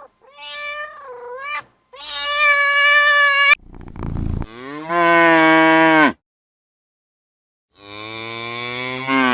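A cat meowing, two drawn-out meows, followed by cattle lowing: two long, deeper moos, the second cut off abruptly near the end.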